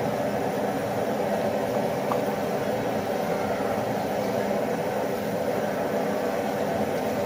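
Steady mechanical hum with a hiss, even throughout.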